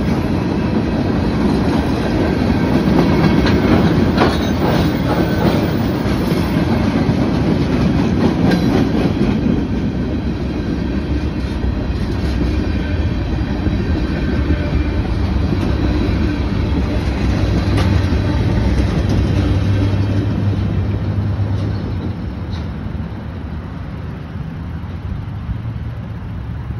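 Freight train cars, including tank cars, rolling past at a grade crossing: a steady heavy rumble with clanks and clatter of wheels over the rail joints. It grows quieter near the end as the train recedes.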